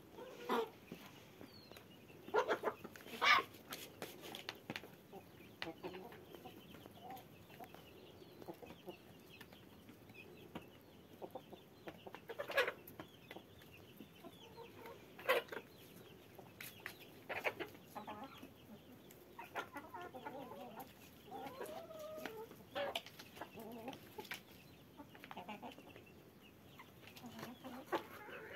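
A flock of domestic hens clucking on and off as they feed, with a longer run of calls about three-quarters of the way through.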